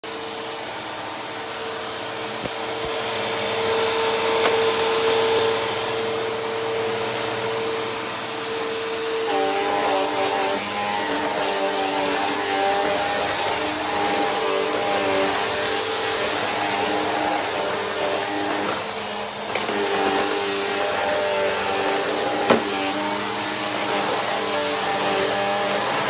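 Bissell PowerForce Helix upright vacuum cleaner running while it is pushed over a hardwood floor, a steady motor whine whose tone shifts about nine seconds in. One sharp click near the end.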